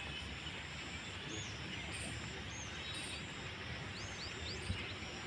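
Quiet outdoor ambience: a steady background hiss with birds chirping several times in short, high-pitched calls, and a single soft tap about four and a half seconds in.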